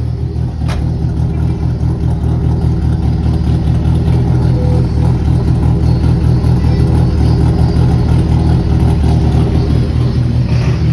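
Fiat Fiorino van's engine running at a steady speed through a custom 2-inch exhaust with a small mid-pipe muffler, giving a low, pulsing rumble. It grows louder over the first few seconds, then holds steady. A single sharp click comes just under a second in.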